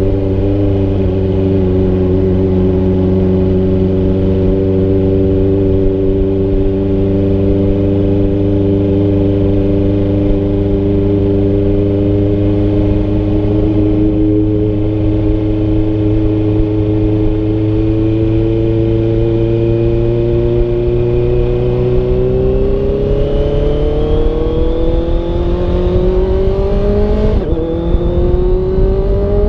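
Honda CBR650F's inline-four engine running at steady revs, then rising in pitch from about two-thirds of the way through as it accelerates. Near the end there is a brief break and a small drop in pitch, like a quick upshift, after which the revs climb again.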